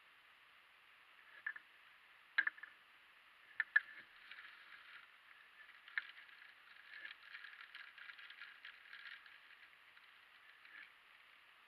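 Clear plastic bags rustling and crinkling as small RC parts are handled, after a few sharp clicks and taps in the first few seconds, over a steady faint hiss.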